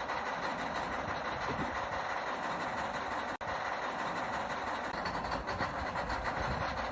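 Small electric motors and plastic gearboxes of RC toy construction machines whirring steadily, with a brief dropout about three and a half seconds in.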